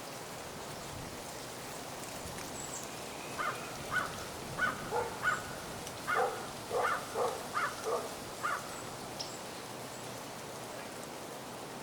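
Steady rain falling, with a bird giving a quick series of about ten short calls in the middle.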